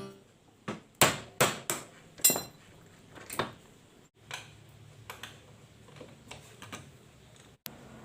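Metal hand tools knocking and clinking against metal parts: about six sharp knocks in the first two and a half seconds, one more a second later, then fainter scattered clicks.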